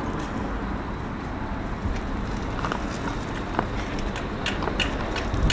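Steady low outdoor rumble, with scattered light clicks and taps from about halfway in that come more often near the end.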